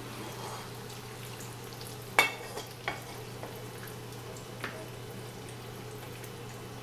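Oil-fried chicken leg pieces sizzling in a hot frying pan as they are lifted out with a spatula, over a steady low hum. A sharp clink about two seconds in is the loudest sound, followed by two lighter clicks.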